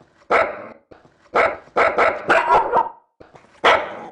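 Small Havanese–Shih Tzu cross dog barking: about six sharp barks at uneven intervals, a couple of them close together in the middle.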